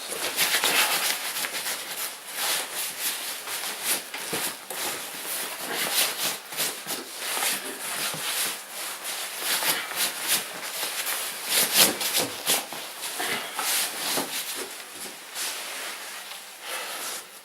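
Rustling and crinkling of packaging being handled as the contents are taken out of the box, with many short crackles and rubs.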